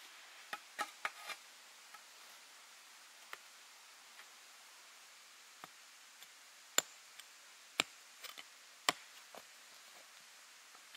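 A small hand pick striking the forest floor as ground is dug and cleared. It comes as sharp single strikes: a quick run of four about half a second in, then scattered blows, the loudest three between about seven and nine seconds in.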